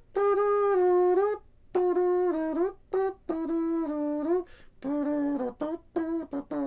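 A voice singing a slow wordless tune of long held notes that step down in pitch, breaking into shorter notes near the end.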